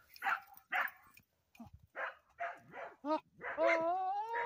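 Buck goat bleating in a string of short calls, then one longer bleat rising slightly in pitch near the end: a buck's courtship calls to a doe.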